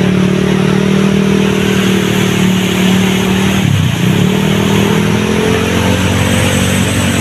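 Motorcycle engine running at a steady pitch through deep flood water, over the rush and splash of the water. About four seconds in the engine note dips briefly, then picks up again and slowly climbs.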